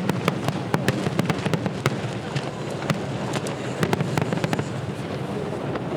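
Fireworks bursting overhead: a rapid run of sharp cracks and pops, thickest in the first two seconds, over a steady low rumble.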